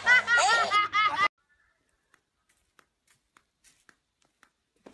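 A woman laughing loudly in quick repeated rising-and-falling bursts, cut off abruptly about a second in, followed by near silence with a few faint clicks.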